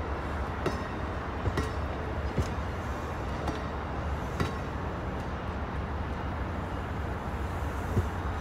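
Amtrak passenger coaches rolling past on the tracks: a steady low rumble with sharp, unevenly spaced clicks, about one a second, as the wheels pass over rail joints.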